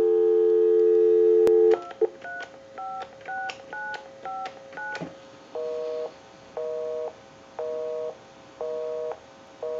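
Telephone line tones heard as the repaired Popeye novelty phone dials out. A steady dial tone stops about two seconds in as a quick string of touch-tone (DTMF) digits is keyed on the phone's pad, showing it now dials in touch tone. About halfway through, a busy signal begins: a two-note beep pulsing on and off about once a second.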